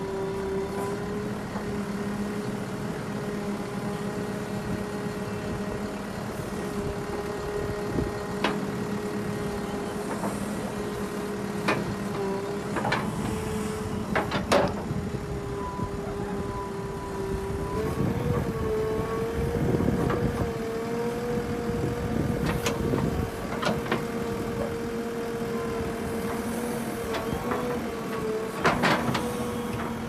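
JCB 3DX backhoe loader's diesel engine running steadily as it digs, its note stepping up to a higher pitch a little past halfway. Sharp knocks come now and then as the bucket strikes hard, stony earth.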